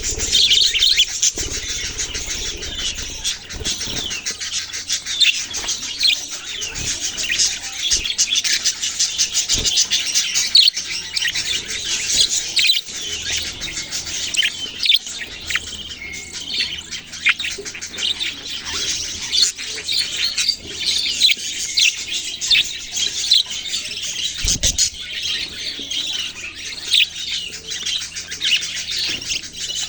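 A flock of small pet parrots chirping and chattering without pause, many high, short calls overlapping.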